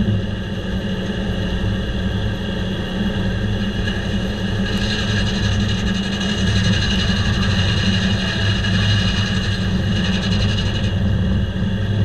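Diesel engine driving a circle sawmill runs steadily with the large circular blade spinning. About five seconds in, the blade cuts into a hemlock log, adding a harsh, hissing sawing noise over the engine for about six seconds before it stops shortly before the end.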